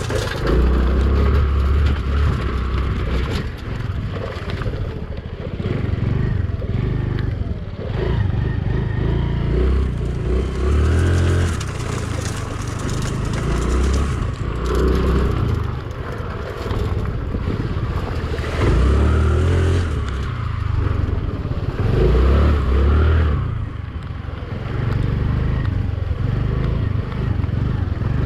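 Honda motorbike running as it is ridden along a rough dirt road, the engine note rising and falling, with heavy wind rumble on the microphone that surges every few seconds.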